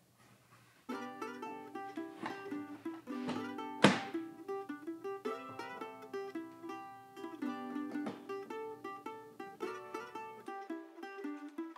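Background music of plucked strings, a picked melody that starts about a second in. A single sharp knock stands out about four seconds in.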